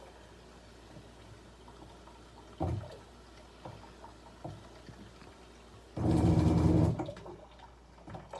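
Water filter making noise: faint water sounds, a short burst about two and a half seconds in, and a loud humming, buzzing spurt lasting about a second near the six-second mark.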